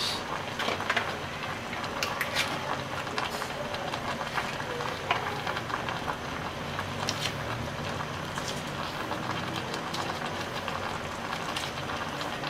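Pot of jackfruit in water simmering on the stove: a steady bubbling hiss with scattered small pops.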